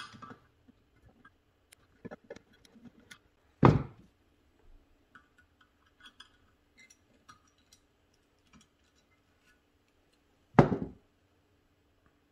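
Small metallic clicks and scrapes of a screwdriver working the jets out of a Rochester 4GC carburetor body. There are two louder knocks, about four seconds in and again near the end, as a tool or part is set down on the bench.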